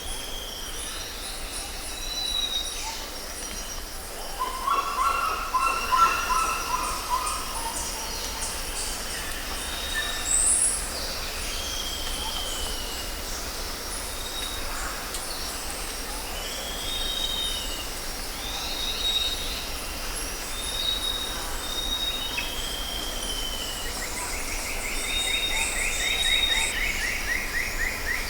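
Tropical jungle ambience: many birds calling, with repeated short high whistles and down-slurred notes over a steady high buzzing. A lower run of calls sounds about five seconds in, and a rapid pulsed trill comes near the end.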